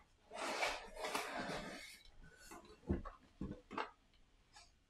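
Cardboard and plastic game packaging being handled: about a second and a half of rustling, then a few light knocks in the second half.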